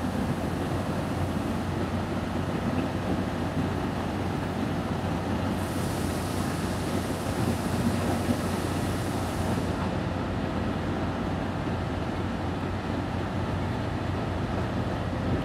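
Diesel-hauled train running in toward the platform: a steady engine rumble with a low hum. A higher hiss joins for about four seconds midway.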